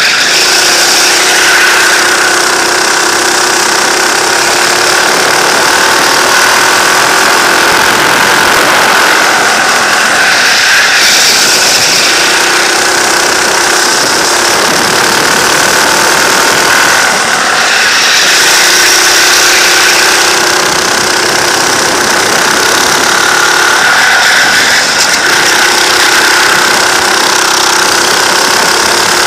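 Go-kart engine running hard, heard onboard, its note climbing along each straight and falling away into the corners about four times. Other karts' engines run close by.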